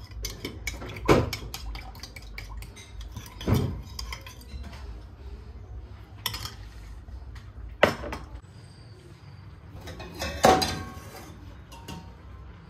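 Metal spoon stirring sauce in a ceramic bowl, scraping and clinking against the sides, with several sharp clinks spaced a couple of seconds apart.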